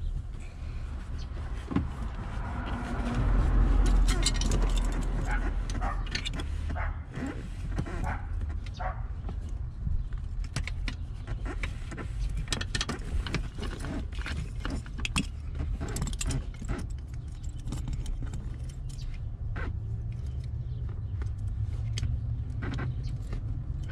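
Small plastic wiring connectors and harness wires being handled and fitted at a car seat, giving an irregular scatter of light clicks and rattles. A steady low rumble runs underneath and swells for a couple of seconds near the start.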